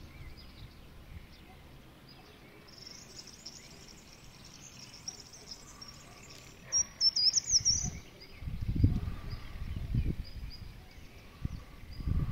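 Small birds chirping in the background, with a quick louder run of twittering chirps about seven seconds in. From about eight seconds on, irregular low rumbling noise on the microphone.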